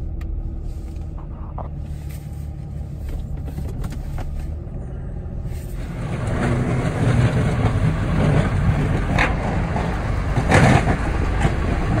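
Vehicle cab noise: a low, steady engine and heater-fan rumble inside a truck cab. About six seconds in it turns louder and rougher, with two sharp knocks near the end.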